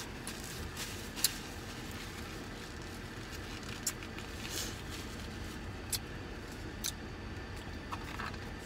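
Eating sounds from someone biting and chewing a soft beef steak taco: occasional sharp mouth clicks and the crinkle of its paper wrapper, over a steady low hum of a car interior.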